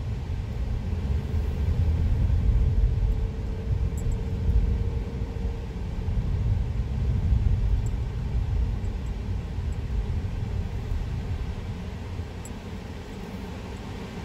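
Steady low road and engine rumble inside a moving car's cabin, easing slightly near the end.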